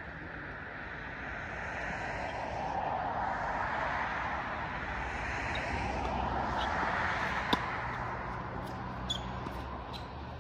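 A vehicle passing by: a rushing noise that swells over several seconds and then fades. A single sharp knock comes about seven and a half seconds in, and a few fainter clicks follow.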